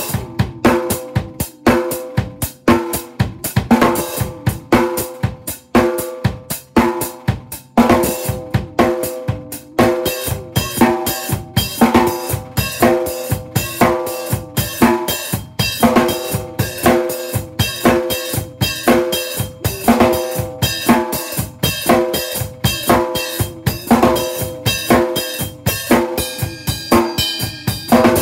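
Acoustic drum kit played hard and busy: fast, dense strokes on snare, toms and bass drum with loud accents throughout, and a cymbal ringing near the end.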